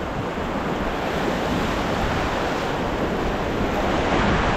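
Whitewater rapids churning around an inflatable raft: a steady rush of water that grows a little louder near the end, with wind buffeting the microphone.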